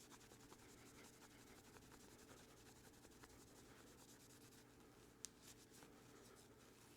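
Faint rubbing of a cloth buffing a pocketknife's handle cover, over a low steady hum, with one small sharp click about five seconds in.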